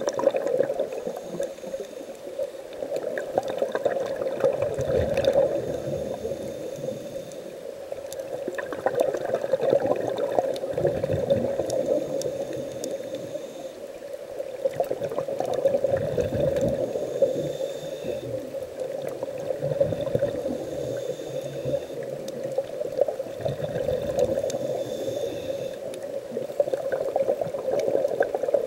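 Scuba diver breathing through a regulator underwater: exhaled bubbles gurgle and rush out in slow swells about every six or seven seconds.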